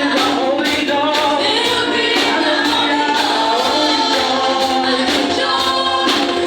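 Worship song: several voices singing a melody over band music with a steady beat.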